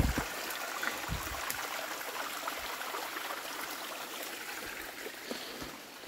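Small forest stream running steadily, an even rushing hiss of water, with a couple of soft thumps in the first second or so.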